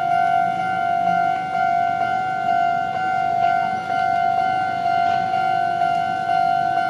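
Japanese railway level-crossing alarm ringing: one steady high tone repeating without a break, the warning that a train is approaching the crossing.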